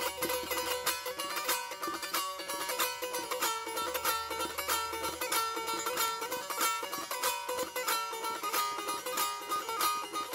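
Dotar, a long-necked two-string lute, played solo in quick plucked strokes, a running melody over a held note.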